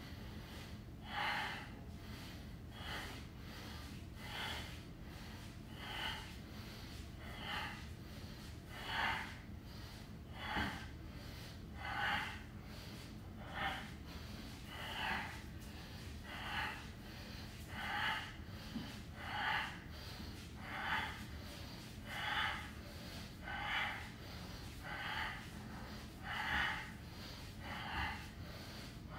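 A man breathing hard from exertion, in short, even breaths about every second and a half.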